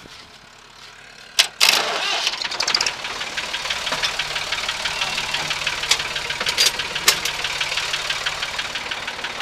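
Massey Ferguson 255 tractor's diesel engine starting about a second and a half in, then running steadily at idle with a fast, even knocking rhythm.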